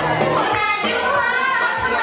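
Music with singing, and people's voices mixed in.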